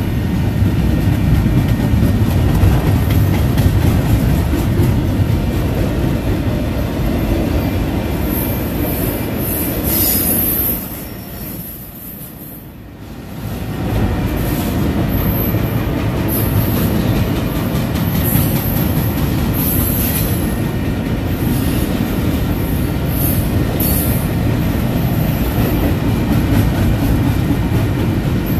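Double-stack intermodal container well cars rolling past at close range: a steady heavy rumble and rattle of steel wheels on the rails, with brief high-pitched wheel squeals now and then. The sound drops away for a few seconds about eleven seconds in, then comes back at full strength.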